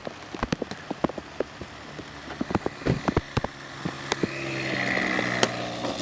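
Raindrops striking close by as many separate sharp taps. From about two seconds in a steady motor hum joins them and grows louder toward the end, dropping a little in pitch near the end.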